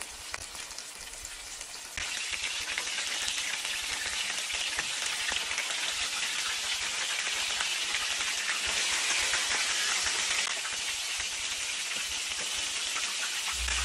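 Flour-coated chicken drumsticks deep-frying in hot oil, a steady sizzle and crackle of bubbling oil that gets louder about two seconds in.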